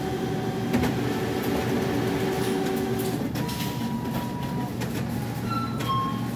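Steady mechanical hum and background noise, with a thin steady tone partway through and a few short faint beeps near the end.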